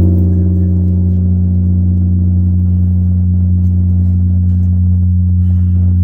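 Deep ringing of a struck Buddhist temple bell: a steady low hum, with higher overtones that fade over the first two seconds.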